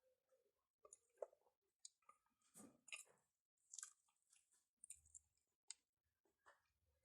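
Soft, close-miked chewing of pizza, with wet mouth clicks and brief crunchy bites coming irregularly.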